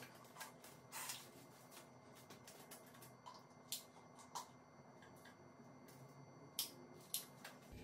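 Near silence with a handful of faint handling clicks and light knocks as the softbox lamp's power cord is plugged into a wall socket, two sharper clicks coming near the end.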